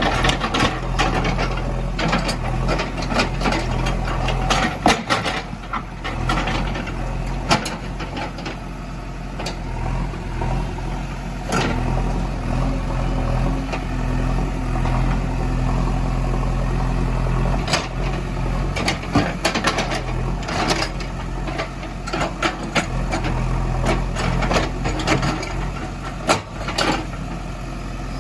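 Diesel engine of heavy machinery running steadily at idle, with frequent irregular clanks and rattles over it.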